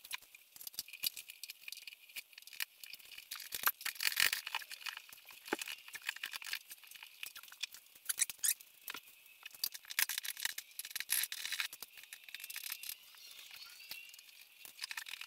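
Hand tools and loose metal parts clinking and scraping under the back of a VW bus as the heater tube clamps and connectors are worked off: a dense, irregular run of light clicks, rattles and scrapes.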